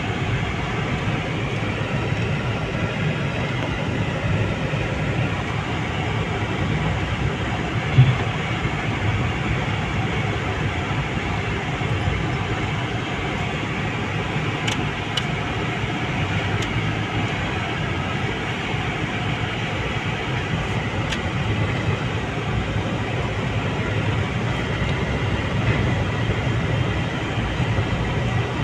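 Engine and road noise heard from inside a moving vehicle's cabin: a steady low rumble, with a single knock about eight seconds in.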